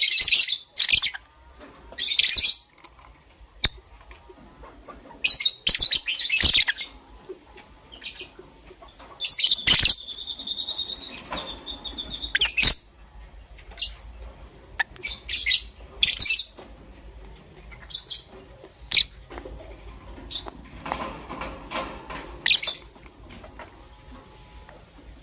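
Lovebirds chirping: short, shrill bursts of high chirps every second or two, with one longer call of steady stacked notes about ten seconds in. A few sharp clicks come between the calls.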